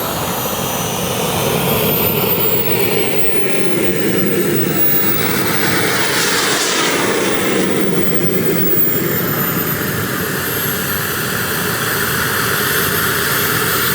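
Turbine engine of a radio-controlled model jet in flight: a steady rushing jet noise with a high whine that sinks and rises in pitch as the jet makes a pass, fullest about halfway through.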